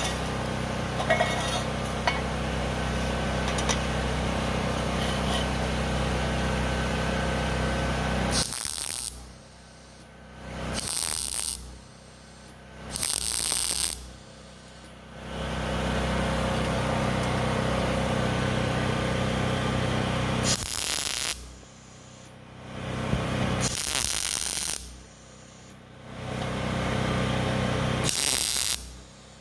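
Welder laying weld on steel exhaust pipe, with a steady electrical crackle and hum. It runs for about eight seconds, then stops and starts again in several shorter bursts, with pauses of about two seconds between them.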